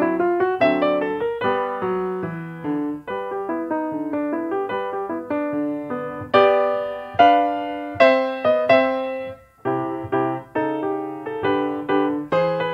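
Solo piano music, a flowing run of single notes and chords with several louder struck chords in the middle.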